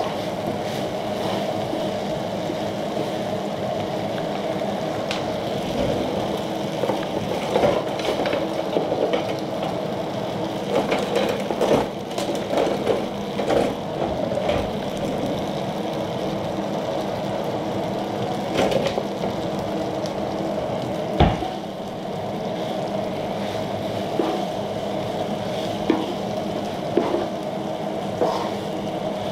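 Shrimp and noodles sizzling on a Tefal Maxi Plancha electric griddle, with a wooden spatula and tongs scraping and clicking on the griddle plate as the food is turned. One sharper knock comes about two-thirds of the way through.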